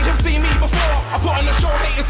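Electronic hip-hop backing music with a heavy bass line, which drops out briefly about a second in.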